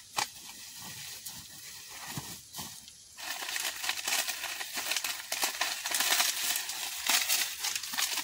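Dry corn husks and leaves rustling with many small cracks as ears of dried corn are pulled off the stalks and husked by hand. It starts with a few sharp snaps and becomes louder and busier about three seconds in.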